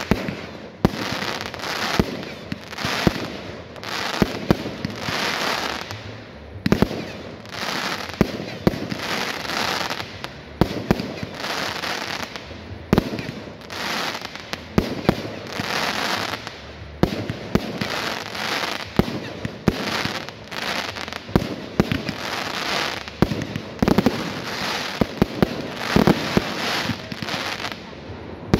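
Aerial fireworks display: shells bursting in quick succession with many sharp bangs, over a continuous crackling hiss from the glittering stars.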